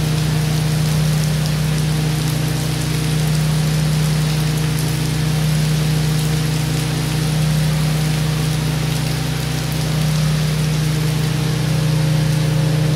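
Heavy rain pelting a sheet of standing floodwater, a steady hiss of drops splashing on the surface, with a steady low hum underneath.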